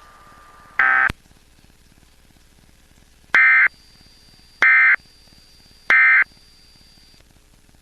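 Emergency Alert System end-of-message code: three identical short, buzzy digital data bursts about 1.3 seconds apart, the SAME tones that close the alert. A similar burst comes about a second in, before the three.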